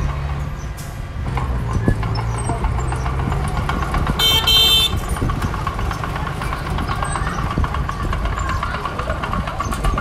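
Heavy earthmoving machinery engine running steadily under load, with one short, high-pitched horn toot about four seconds in.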